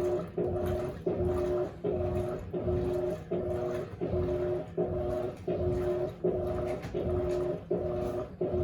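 Electrolux LAC16 top-loading washing machine agitating on a high water level. Its motor, a 1/4 hp WEG taken from an LT13B in place of the original 1/3 hp, hums in short strokes that stop and restart about every 0.7 s, with water sloshing underneath.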